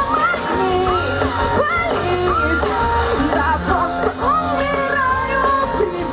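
A live pop-rock band playing, with bass guitar and drums under a woman's singing voice.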